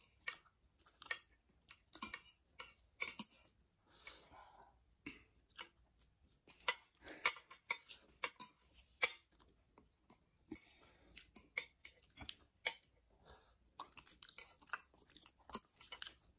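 Metal chopsticks clicking and scraping against ceramic plates in many short, irregular taps while picking at noodles, with soft chewing sounds in between.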